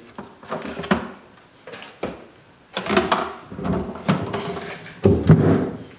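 A plastic scoop knocking and scraping against the tub of a utility sink as meat scraps are scooped out, in a series of irregular thuds and clatters, the loudest a little after five seconds in.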